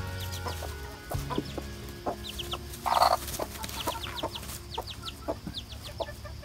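A young chick peeping over and over in short, high, falling notes while hens cluck, with one short, louder burst about three seconds in.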